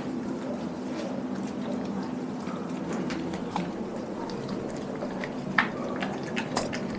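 Doberman licking and mouthing a whole raw chicken: wet licking and smacking sounds with scattered small clicks, the sharpest about five and a half seconds in.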